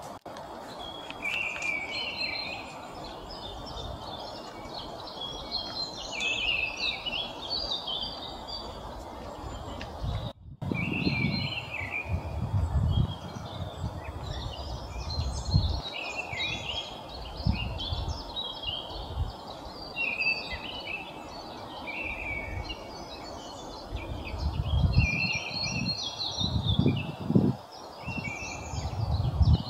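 Songbird singing in many short, quick phrases over outdoor background noise. The song breaks off for a moment about a third of the way in, then goes on, with bursts of low rumble at times, the strongest near the end.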